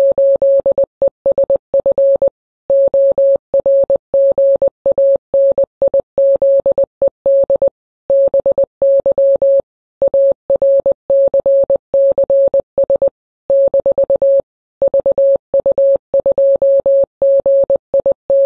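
Morse code beeping: a single clean, mid-pitched tone keyed on and off in short and long elements, sent in groups with short pauses between them.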